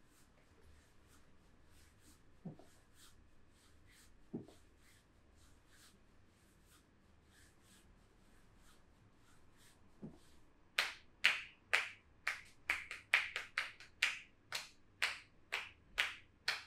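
Percussive back massage: hands striking a person's back. Faint light taps and a few soft thumps come first, then about two-thirds of the way in a fast run of sharp, loud smacks, about three a second.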